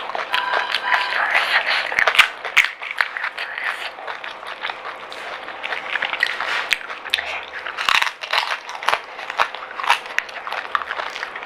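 Crisp, hollow panipuri shells being bitten and chewed, a dense, irregular run of crackly crunches.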